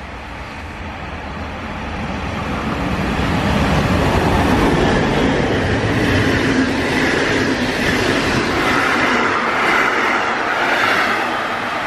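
Electric locomotive-hauled passenger train running through a station at speed. It grows louder over the first few seconds as it approaches, then the coaches roll past close by with a steady rumble and clatter of wheels on rails.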